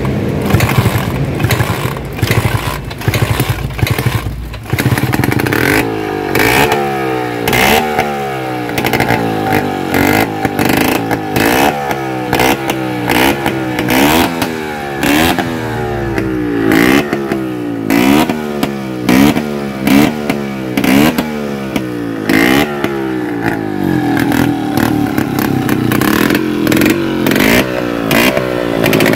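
Vespa scooter's two-stroke engine being revved in repeated quick blips, its pitch rising and falling about once a second, then held at a steadier speed near the end: an engine test before riding.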